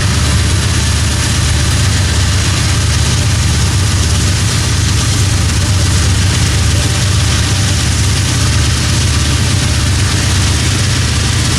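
Norfolk Southern freight train running, a steady, loud, heavy diesel rumble that does not change.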